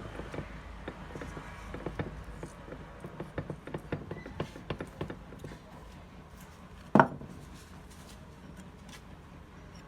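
Hand tools at work on parts: a run of irregular light taps and clicks, then one loud, sharp knock about seven seconds in.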